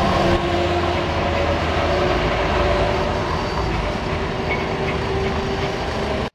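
A street tram rolling past on its rails, its wheels and motors running with a steady hum, mixed with cars driving close by. The sound cuts off suddenly at the end.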